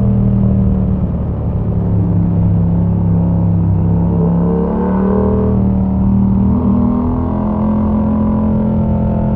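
Yamaha MT-07's 689 cc parallel-twin engine running through an open exhaust with the dB killer removed, heard onboard while riding. The engine note eases down over the first few seconds, breaks briefly around the middle, then picks up and holds steady.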